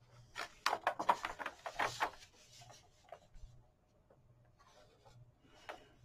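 A page of a thin-paper coloring book, painted in watercolor, being turned by hand: a quick run of paper crackling and rustling for about two seconds, then a few fainter rustles as the page is smoothed down.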